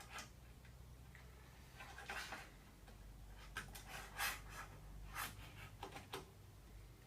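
Faint, scattered clicks and rubs of small Phillips screws and nuts being handled and fitted by hand, over a low steady hum.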